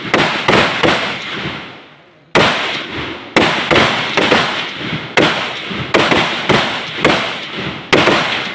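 Rifle fire from several shooters on a firing range: a rapid, irregular string of sharp shots, each ringing out with echo, with one pause of about a second and a half near the start before the firing picks up again.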